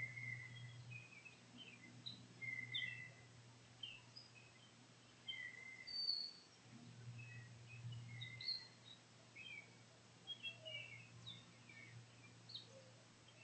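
Faint birdsong: many short chirps and calls from several small birds, scattered throughout, over a low steady hum that swells and fades.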